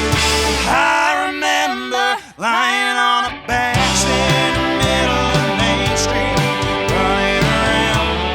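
A live band plays an original song. About a second in, the bass and drums drop out, leaving a lone melodic line that bends and slides in pitch. The full band comes back in just after three seconds.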